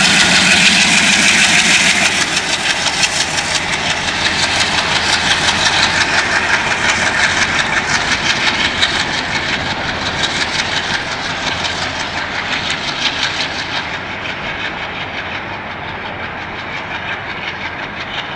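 WDM3D diesel locomotive's engine passing close, then a train of freight wagons rattling over the rail joints in a fast, even clatter that fades steadily as the train moves away.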